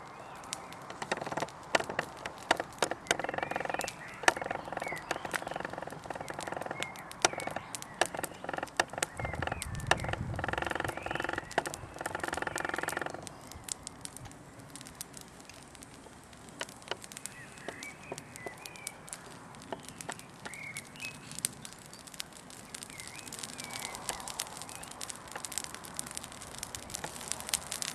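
Small twig fire crackling, with frequent sharp pops throughout. For roughly the first half a steady droning hum with several overtones sounds over it, then stops; faint bird chirps follow.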